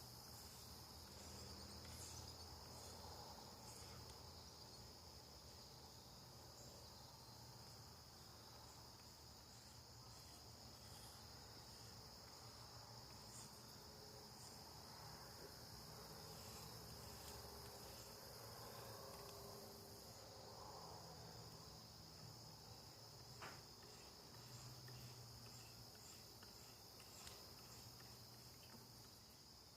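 Faint, steady night chorus of crickets: a continuous high trill with no break, joined by a few faint ticks and one sharp click about three-quarters of the way through.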